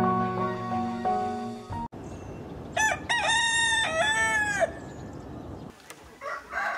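Soft music stops abruptly about two seconds in. Then a rooster crows once, loudly, over a steady hiss, and a second, fainter crow begins near the end.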